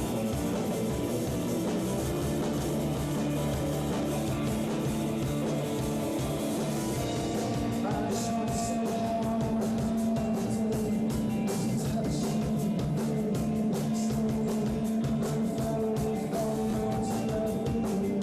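Rock music with guitar and drums at a steady level, with held notes throughout.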